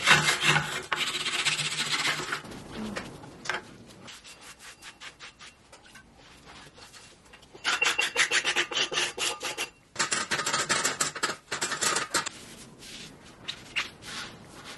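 Dried clay being scraped and rubbed off a wooden board and the pottery wheel head with a hand scraper, in runs of quick rasping strokes. The scraping is loudest in the first two seconds and again from about eight to twelve seconds in, and quieter in between.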